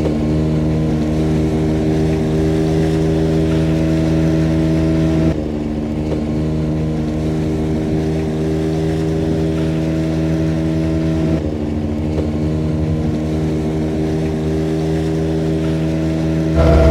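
Outboard boat motor running at a steady speed, a constant engine hum. The sound changes abruptly twice, about five and eleven seconds in.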